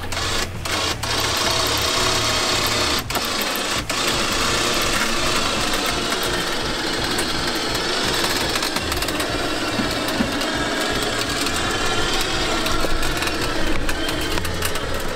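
Harbor Freight 3,500-pound electric winch running steadily under load, its motor and gears whining, with a few sharp clicks in the first four seconds. The cable sounds crunchy as it winds on the drum.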